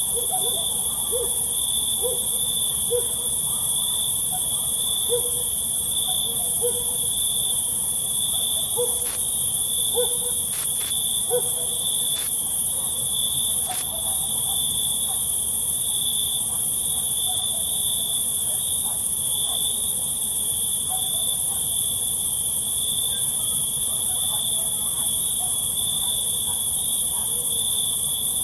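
Crickets chirping in a steady, high, pulsing trill over a dense high insect hiss. In the first half, short low calls repeat roughly once a second, and a few brief louder noises come between about nine and fourteen seconds in.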